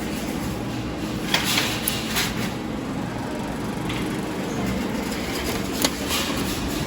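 Steady din of a busy arcade full of machines, with a few short sharp clicks about a second and a half to two seconds in and one more near the end.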